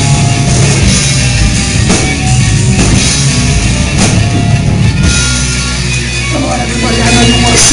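Live rock band playing loud: distorted electric guitars, bass and a drum kit. About five seconds in the drum hits thin out and a held low chord rings on with a higher guitar line over it.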